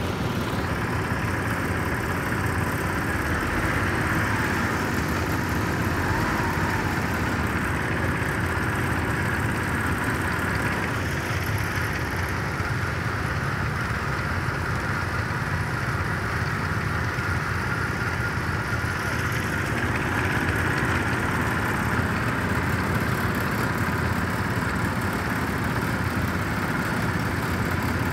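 Several garden tractors driving across grass together, their small engines running steadily with no breaks.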